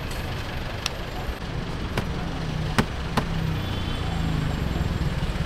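Steady low rumble of street traffic and an idling vehicle engine, with four sharp slaps within the first few seconds as roti dough is thrown and worked on a stainless-steel counter.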